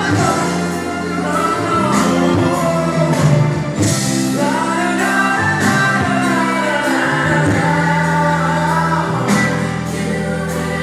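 A man singing into a microphone over a backing track, his voice amplified through a PA, with long held notes.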